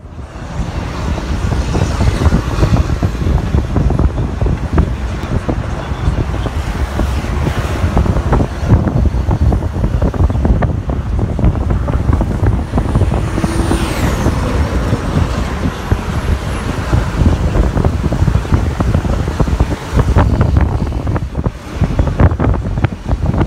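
Highway traffic and road noise heard from a moving car, a dense low rumble that rises and falls. A brief high whine glides down in pitch about halfway through.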